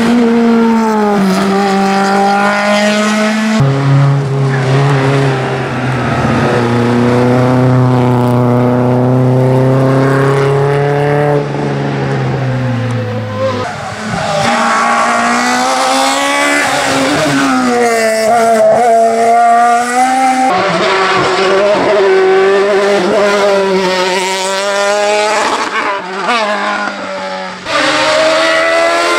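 Competition car engines at full throttle on a hillclimb, several cars in turn, each note climbing and then dropping sharply at gear changes and lifts.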